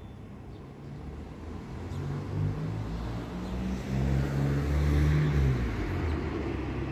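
Low motor rumble of an approaching vehicle, building up from about a second in and loudest around five seconds in, with a rising hiss of rolling noise over it.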